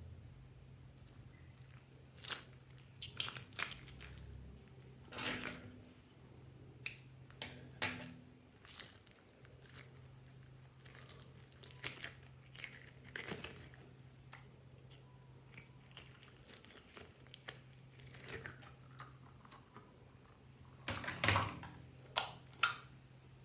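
Hands squishing and stretching slime: irregular sticky clicks, crackles and small pops, with a faint steady hum beneath.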